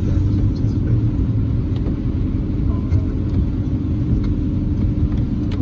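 Steady low rumble of a car driving, heard from inside the cabin, with a few faint sharp ticks.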